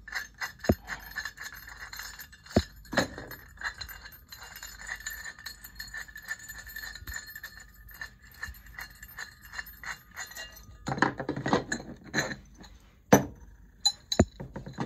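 Small metal parts being handled while a servo motor's mounting bracket is put together: screws, nuts and bracket pieces clinking and tapping irregularly, with a busier rattling stretch a little past the middle and two sharper knocks near the end.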